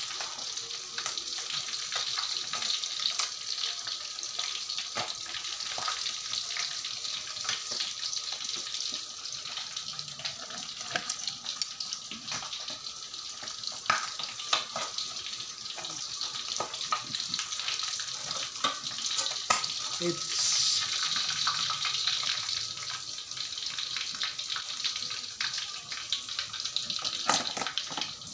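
Fish frying in hot oil in a wok: a steady sizzle full of small crackles and pops, briefly louder about twenty seconds in.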